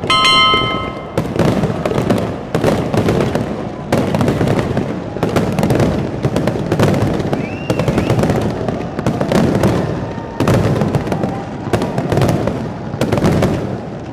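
Fireworks going off in a steady run of sharp bangs about once every second or so, each with a rumbling echo. A short ringing tone sounds at the very start.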